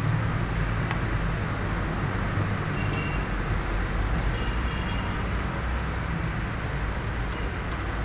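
A motor vehicle engine runs with a steady low rumble over road-traffic noise. A faint single click comes about a second in.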